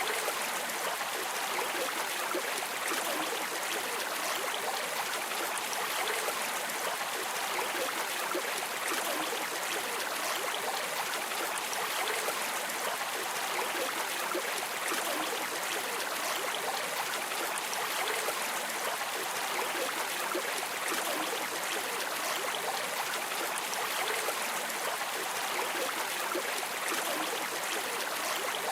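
Steady rushing and trickling of a flowing river or stream, an even wash of water noise without breaks.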